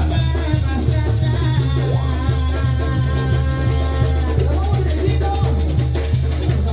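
Mexican banda music playing: a pulsing bass line and drums under long held horn notes, in a Latin dance rhythm.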